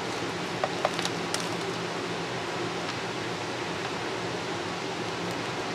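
Steady room hiss, with a few light clicks of small metal jewelry findings (jump ring, chain and charm) being handled, mostly in the first second and a half and once or twice later.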